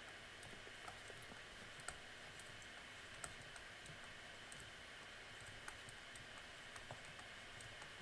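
Faint, scattered clicks and taps of a stylus on a tablet screen as equations are handwritten, over a low steady hiss.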